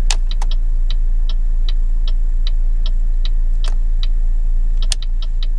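Chevy HHR turn-signal flasher ticking steadily at about two and a half ticks a second, over a steady low hum. A sharp click comes at the start and another near the end, after which the ticking doubles to a rapid pace: hyper flash, the sign of a burnt-out turn-signal bulb.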